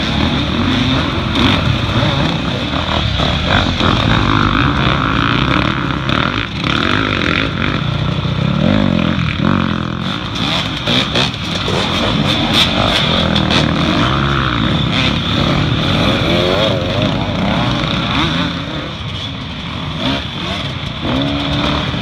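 Several off-road dirt bike engines revving up and down in turn as the racers accelerate past one after another.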